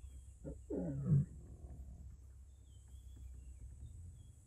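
Lioness giving one short contact call about a second in, falling in pitch, with a brief lead-in sound just before it.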